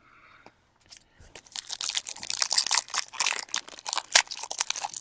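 Wrapper of a baseball card pack crinkling and tearing as it is opened by hand, a dense run of crackles starting about a second and a half in.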